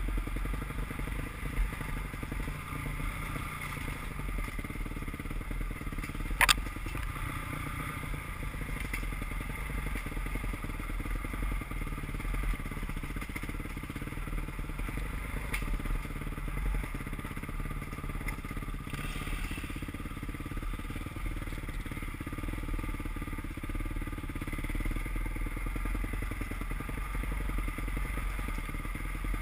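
Enduro dirt bike engine running steadily while riding a dirt forest trail, with rattling and one sharp knock about six and a half seconds in.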